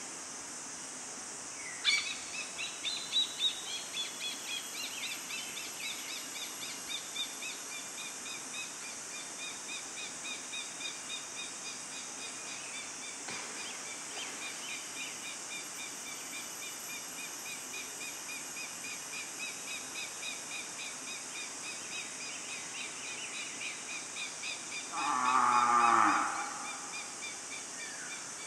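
A long, steady series of rapid, high repeated notes, likely a bird, over an even high-pitched hiss of forest insects. About 25 seconds in, a loud harsh call drops steeply in pitch over about a second.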